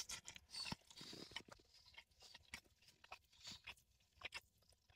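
Faint chewing of a mouthful of pork belly Reuben sandwich, heard close up as scattered soft crunches and mouth clicks.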